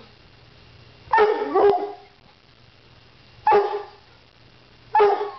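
Redbone Coonhound barking in four short barks, two in quick succession about a second in, one at about three and a half seconds and one near the end: warning barks guarding his bed and rawhide from a Chihuahua.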